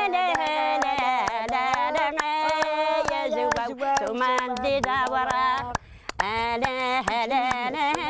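Two older women singing a folk song together in wavering voices while clapping their hands in a steady rhythm; the singing and clapping break off briefly about six seconds in, then resume.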